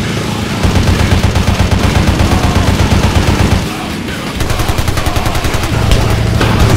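Rapid automatic rifle fire, as a film sound effect: a long burst of fast shots, a brief pause about four seconds in, then another fast burst.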